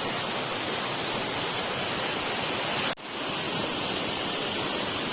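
Steady rushing of flowing water, an even hiss with a brief break about three seconds in.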